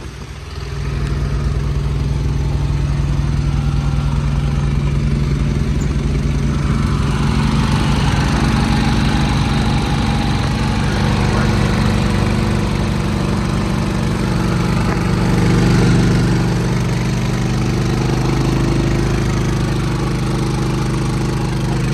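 Westinghouse iGen4500 inverter generator, mounted in an aluminium truck tool box, starting by remote key fob and then running steadily. It catches about half a second in, and from about seven seconds in, once the box lid is open, it sounds brighter and noisier.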